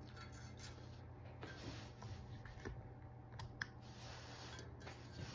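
Faint rubbing and a few light clicks of plastic zip ties and broom bristles being handled and threaded through holes in a metal cooking pot, over a low steady hum.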